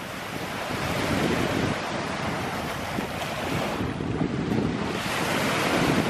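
Lake Superior waves washing steadily, with wind buffeting the microphone.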